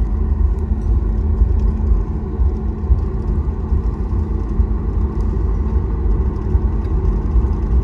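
Cabin noise of a Boeing 737 MAX 8 taxiing after landing: a steady low rumble from the engines and the landing gear rolling along the taxiway, with a faint steady hum above it.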